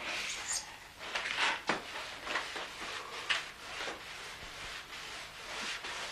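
Irregular scratchy scraping strokes, a few a second, as a parquet floor is scrubbed by hand.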